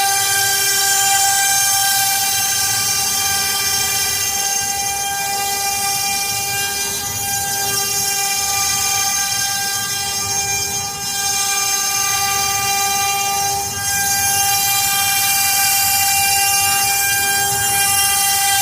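CNC router spindle running with a steady high whine over a hiss while cutting melamine-faced particleboard, dipping briefly twice, about 11 and 14 seconds in.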